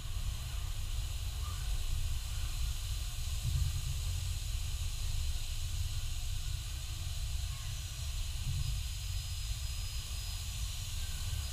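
Steady hiss over a low rumble from a robotic car-body paint booth: the spray robots' atomizers and the booth's air system running continuously.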